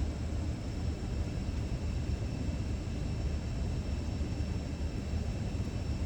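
Vehicle running, heard from inside the cab: a steady low rumble with a faint, steady high whine over it.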